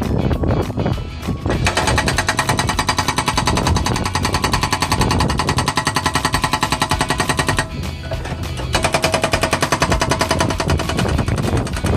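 Excavator-mounted hydraulic breaker hammering concrete rubble in fast, even blows, about ten a second: one run of about six seconds, a pause of about a second, then a second run. The machine's engine runs underneath.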